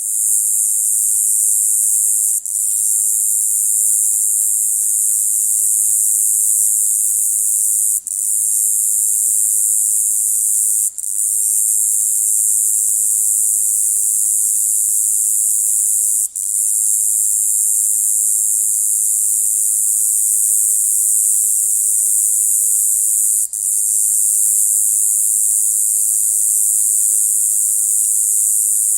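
A single cicada calling in one continuous, high-pitched ratcheting buzz, broken by a brief dip five times.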